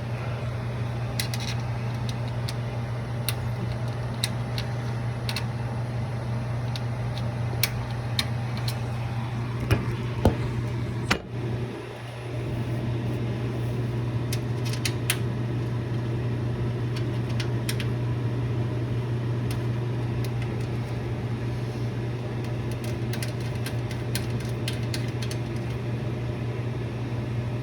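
Over-the-range microwave's vent fan running steadily with a low hum, drawing cooking exhaust up into the vent. Scattered light ticks sound over it, and the noise dips briefly about eleven seconds in.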